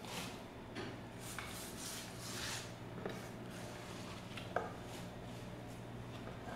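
Hands sweeping chopped herbs and salad leaves across a wooden board and dropping them into an earthenware bowl: soft, irregular rustling of leaves and brushing on wood, with one sharper tap about four and a half seconds in. A faint steady hum runs underneath.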